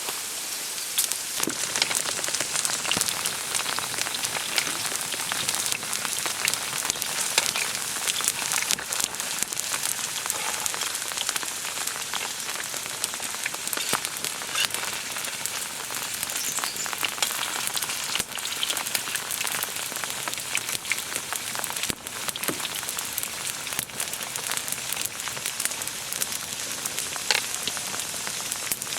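Steady rain falling, with many separate drops striking a surface close by.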